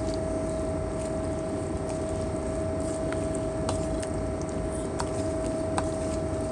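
A wooden spoon stirring thick baked beans in a stainless steel mixing bowl, with a few light clicks as the spoon knocks the bowl. Under it runs a steady drone with a steady whine from the towboat's engines and machinery.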